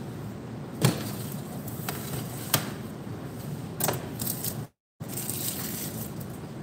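About four sharp clinks and knocks of kitchenware being moved on a counter, among them a stainless steel mixing bowl, over a steady background hiss. The sound cuts out completely for a moment near the end.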